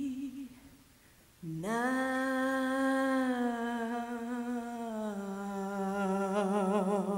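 An unaccompanied solo voice singing long held notes. One note fades out just after the start. After a short pause a new note scoops up about a second and a half in and holds, steps down a little about five seconds in, and takes on a widening vibrato near the end.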